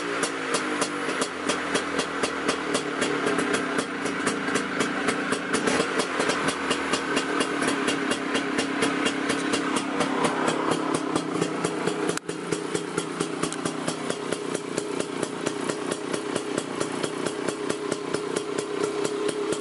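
2005 Genuine Stella 150's single-cylinder two-stroke engine idling through a freshly fitted Polini exhaust, with a steady, even pulse. It settles down from a rev right at the start and dips briefly about twelve seconds in.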